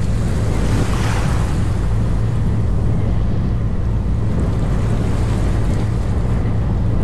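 Steady low drone of a small boat's engine under way, with wind buffeting the microphone and water rushing past the hull. A brief rush of hiss swells about a second in.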